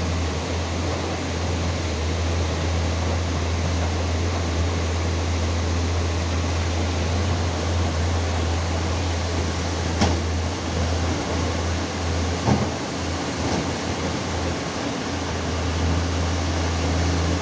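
Excavator diesel engine running with a steady low drone under an even hiss; the drone wavers for a few seconds in the second half, with a sharp knock about ten seconds in and another about twelve and a half seconds in.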